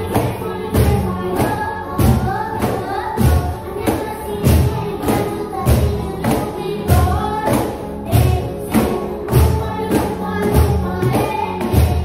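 A recorded pop song with a woman singing plays over a steady beat, while a small group of cajons is struck by hand in time with it. The deep bass tones come from striking the middle of the cajon face, and the sharp slaps from hitting near the edge.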